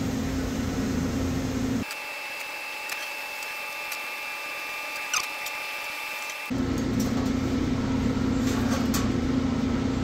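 Steady air-conditioning hum, with a few light clicks as wires and crimp connectors are handled. For a few seconds in the middle the low hum drops out, leaving a steady high-pitched tone.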